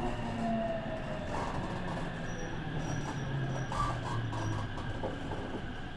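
Tsukuba Express TX1000 series electric train heard from on board, slowing. The whine of its Toshiba IGBT inverter and traction motors falls in pitch over running rumble. From about two seconds in, a faint high beep repeats a few times.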